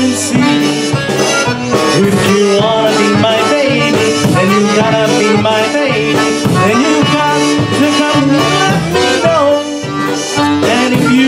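Live polka band playing an instrumental stretch of a lively polka, with accordion and concertina carrying the melody over a steady, even beat.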